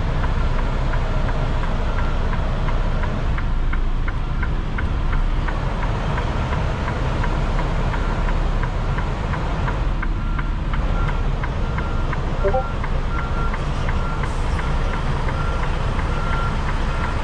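Diesel engine of a 2021 Freightliner Cascadia semi-truck running low, heard from inside the cab while the truck reverses into a parking space. The truck's backup alarm beeps steadily, about three beeps every two seconds, starting about two seconds in.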